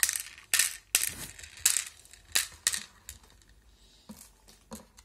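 Small jewellery beads and charms dropped by hand into a clear plastic compartment organiser box, clinking and clattering: about six sharp clinks in the first three seconds, then two fainter ones around four seconds in.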